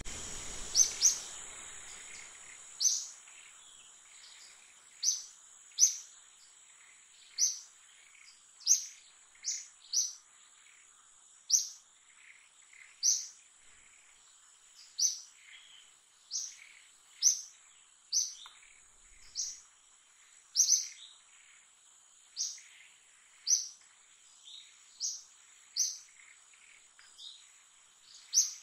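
Repeated short, high-pitched bird chirps, roughly one every second or so, over a steady high-pitched insect drone.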